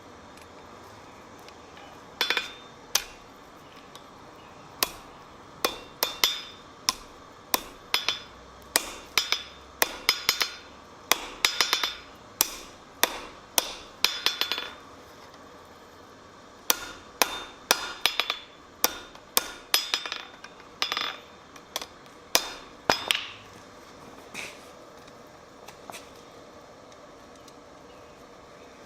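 Blacksmith's hand hammer striking on an anvil in a long run of irregular, ringing blows, some falling in quick doubles and triples, with a short pause partway through; the blows stop a few seconds before the end, leaving only a couple of faint taps.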